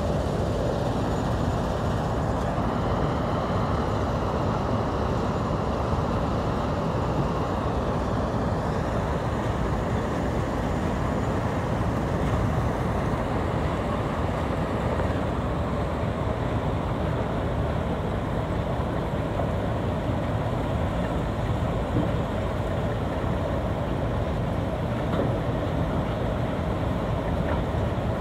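Stone crusher machine running and crushing rock: a steady, even mechanical noise, heaviest at the low end, with no separate knocks standing out.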